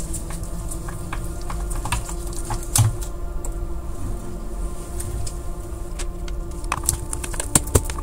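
Scattered small clicks and taps of a screwdriver and screws as an Xbox console's casing screws are undone one by one, over a steady faint hum.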